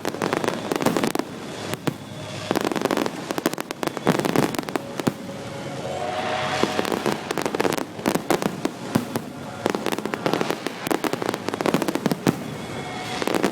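Fireworks display: a rapid, dense run of aerial shells bursting, with loud bangs and crackling.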